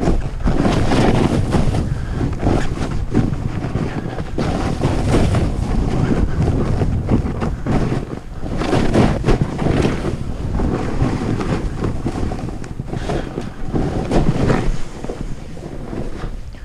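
Wind rushing over the microphone during a fast run down a snow slope, mixed with edges scraping and hissing through chopped-up snow. It swells and fades in repeated surges.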